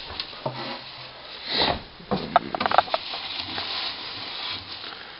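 Shredded-newspaper bedding rustling and crackling as a hand digs through a rat nest to pick out a baby rat.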